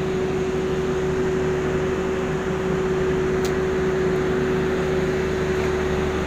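Steady machine drone with one constant humming tone, unchanging throughout.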